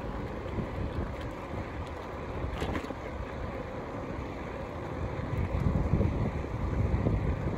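Wind buffeting the microphone of a camera riding along on a moving bicycle: a gusty low rumble that grows stronger near the end.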